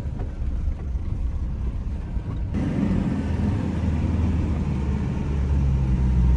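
Car driving: a steady low engine and road rumble. About two and a half seconds in, a louder hiss of tyre and road noise joins it.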